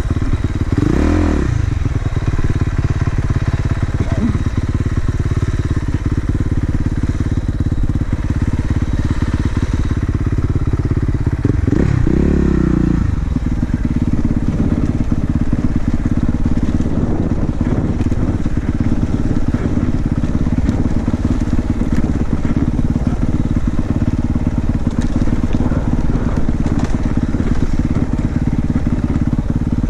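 2019 Honda CRF450R's single-cylinder four-stroke engine running while the dirt bike climbs through snow, with the revs rising and falling sharply about a second in and again around twelve seconds in, otherwise holding steady.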